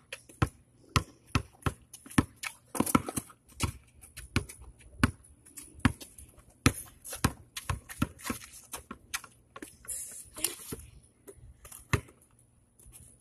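A basketball being dribbled on pavement: sharp bounces, roughly two a second with small gaps.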